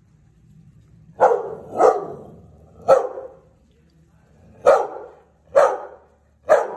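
Belgian Malinois barking: six single sharp barks, spaced unevenly, two quick ones, a third, then three more.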